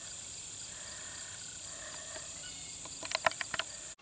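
Insects trilling steadily in a high, even chorus. A few sharp clicks come near the end, then the sound cuts off abruptly.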